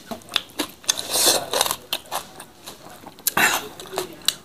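Close-up eating sounds from hand-fed mouthfuls of rice and sambal: wet mouth clicks, lip smacks and chewing, with a short cough about three and a half seconds in.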